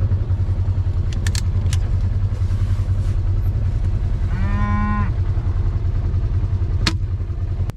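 A vehicle engine idles with a steady low rumble. A cow moos once, briefly, about four and a half seconds in. A few sharp clicks are heard.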